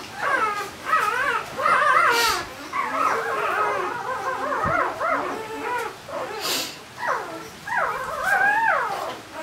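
Four-day-old Barbado da Terceira puppy crying while being handled: a run of high, squealing cries that rise and fall in pitch. Two short breathy hisses come about two seconds in and again past six seconds.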